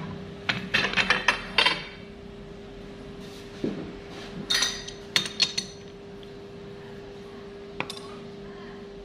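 Metal clinks and knocks as a pipe is set into a lathe's four-jaw chuck and the chuck key is fitted to tighten the jaws, in clusters with a steady hum underneath.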